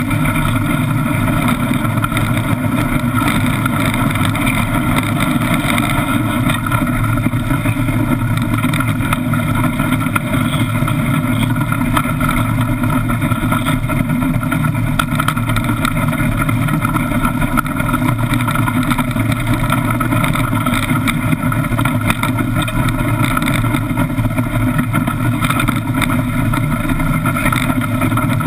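Iceboat runners rumbling and hissing over the ice as the boat sails, a steady, loud, unbroken noise heard through the wooden hull, with some wind.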